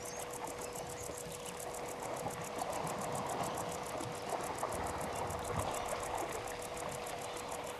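Water splashing and trickling at a waterhole, a little busier in the second half, over a steady fast high pulse of about seven beats a second and a constant hum.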